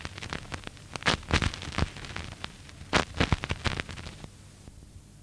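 Crackle and sharp pops of an old recording's surface noise, with no music or speech; the louder pops recur about every two seconds, and the crackle fades down near the end.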